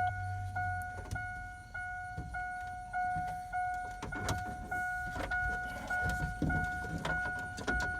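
A truck's warning chime dinging steadily, a little under two dings a second, as it does with the door open or the key left in. Scattered clicks and knocks of parts being handled in the dash come over it.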